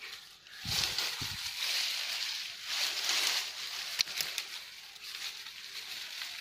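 Rustling of leafy branches being handled and pushed aside, with a couple of dull thumps near the start and a few sharp clicks about four seconds in.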